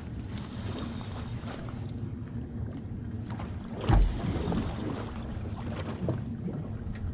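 Steady low rumble of a small boat drifting on open water, with wind on the microphone. Light clicks and one loud knock just before four seconds in come from handling a spinning rod and reel.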